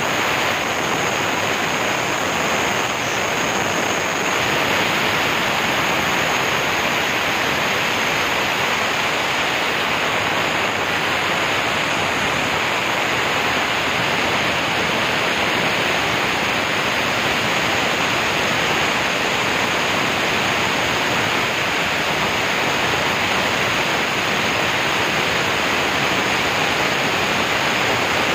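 CNC router's 6 kW, 18,000 RPM spindle milling through a white-faced board: a loud steady rushing of the bit cutting, with a thin high whine over it.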